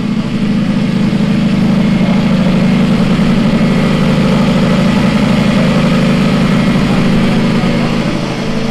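An engine running steadily at idle, an even low drone that holds without revving and eases slightly near the end.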